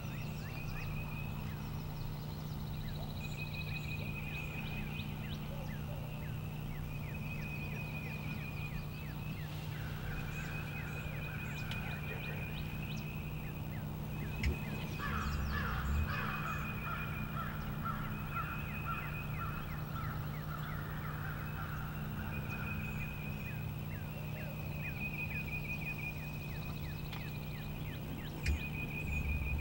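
Strutting wild turkey gobblers: a short deep drumming hum twice, once near the middle and once at the end, and a lower chattering call lasting several seconds around the middle. A songbird's high trill repeats every couple of seconds throughout.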